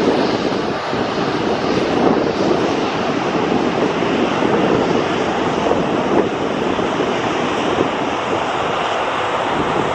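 Boeing 747-400 freighter's four jet engines at climb power just after takeoff: a steady, loud rumbling jet noise from the departing airliner.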